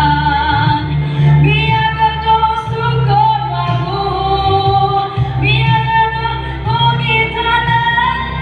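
Voices singing a traditional Dusun chant in long held notes, several lines overlapping, over a steady low drone.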